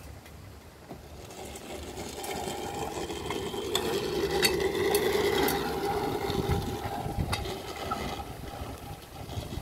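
JP Minimower hand-pushed cylinder mower: its spinning reel whirs as it is pushed across the grass. The whir builds, is loudest in the middle with a few sharp clicks, then eases off near the end.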